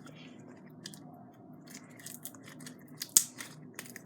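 Hands working sticky slime, making a run of small wet clicks and crackles, with one sharper pop about three seconds in.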